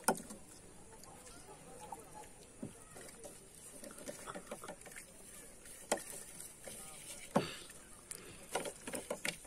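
Steel tumblers knocked down on a wooden table: a sharp knock at the start, two more about six and seven and a half seconds in, and a quick run of small knocks near the end, over faint sounds of eating.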